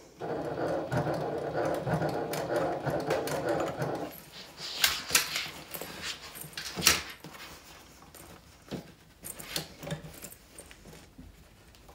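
Sewing machine running slowly for about four seconds as it top-stitches through thick layers of fabric and zipper, then stopping suddenly. Scattered clicks and knocks follow as the fabric is handled and readjusted under the presser foot.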